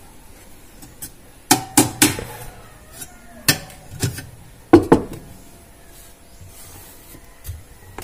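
Plastic egg trays knocking and rattling against the incubator's metal tray rails as they are handled: a string of sharp, irregular clacks, some in quick pairs, the loudest around the middle.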